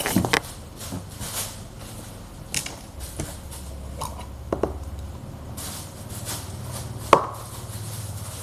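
Thick, sticky slime and its plastic cup being handled: scattered small clicks and taps, with a few sharper knocks, the loudest near the end.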